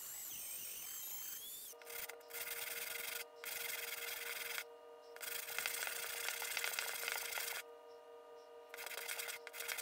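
A rotary tool grinding the steel cross-pein hammer head, a high whine that wavers in pitch. After about a second and a half, this gives way to the hammer head being rubbed back and forth on a sheet of sandpaper, in several long scraping strokes with short pauses between them.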